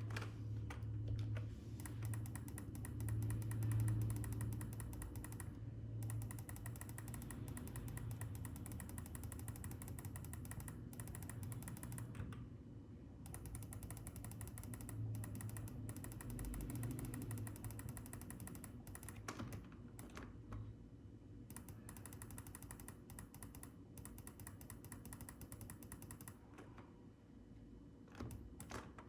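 Rapid, continuous clicking of a computer keyboard, with short breaks, over a steady low hum.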